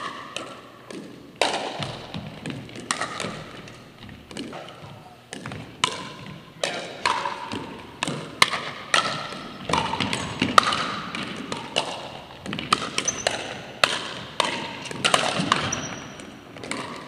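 Pickleball rally: the hollow pock of paddles hitting the plastic ball, with the ball bouncing on the hardwood floor, a sharp knock every second or so at an uneven pace. Each hit echoes briefly in the gym.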